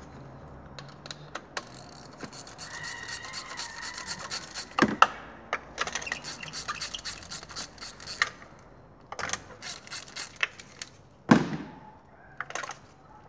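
Ratchet clicking in quick runs as a spark plug socket is turned in an engine's plug well, with scattered sharp metal knocks, the loudest near the end.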